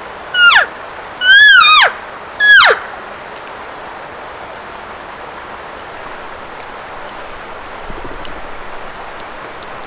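Three short, loud, high-pitched elk calls in quick succession, each sliding down in pitch at its end, over a steady rushing background hiss.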